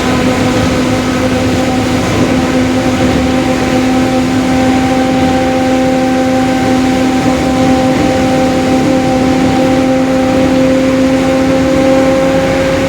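Mercedes-Benz OF-1721 bus under way at a steady pace, its rear differential droning in a steady whine of several even tones over engine and road noise. The drone is the sign of a noisy, worn differential.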